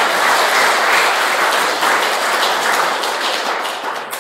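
Audience applauding, a dense clatter of many hands that starts to die away near the end.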